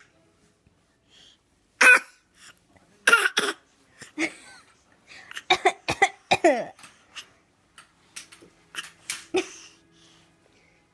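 Coughing: an adult and a small child cough in turn, the child copying with pretend coughs. Short coughs come in small clusters, several to a cluster, with gaps between them.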